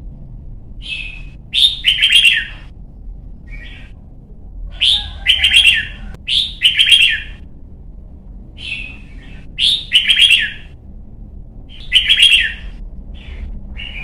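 Young red-whiskered bulbul singing loud, short song phrases, repeated every few seconds with pauses between.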